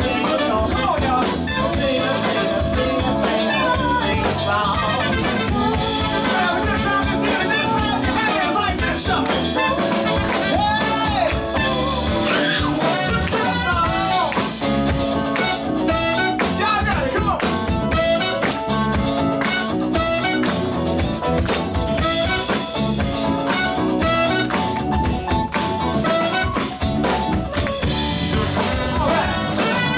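Live band playing a song: a singer over drum kit and instruments, going steadily without a break.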